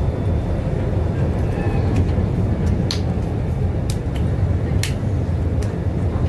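Cabin noise of a moving rubber-tyred Translohr tram: a steady low rumble, with a few sharp clicks about three, four and five seconds in.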